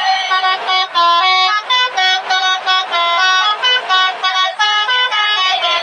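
Indonesian bus 'telolet' horn, a set of tuned air horns, playing a fast tune of short notes that jump in pitch, about three or four notes a second.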